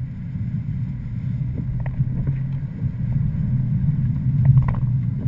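Steady low rumble of a car driving on a wet road, heard from inside the cabin: engine and tyre noise, with a few faint ticks.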